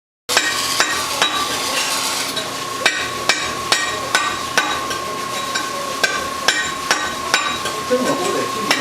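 Steel knife blade being ground against a spinning stone grinding wheel: a steady gritty hiss with a constant ringing tone, and sharp regular ticks about twice a second.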